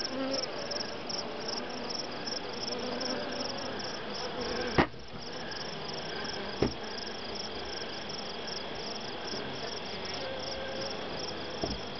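Honey bees humming over an opened hive, with a high insect chirp pulsing steadily about two or three times a second. Two sharp knocks about five and seven seconds in.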